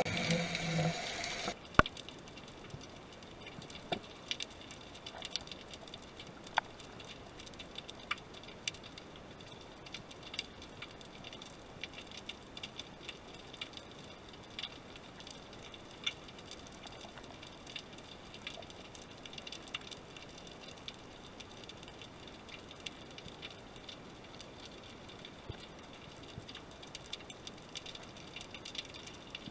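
Underwater ambience picked up by a camera in its waterproof housing: a faint, even hiss with scattered sharp clicks and crackles. A louder sound in the first couple of seconds cuts off abruptly about two seconds in.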